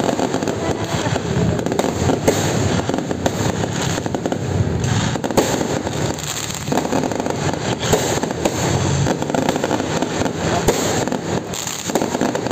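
Fireworks going off in a dense, overlapping barrage of bangs and crackling pops.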